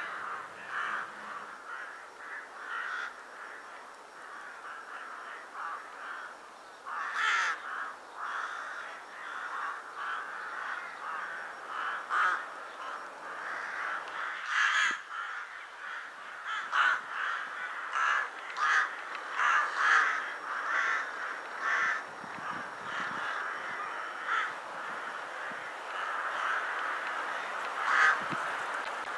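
A large flock of rooks cawing: a steady chorus of many overlapping calls, with louder single caws from nearer birds every second or so. These are wintering rooks gathering before dusk.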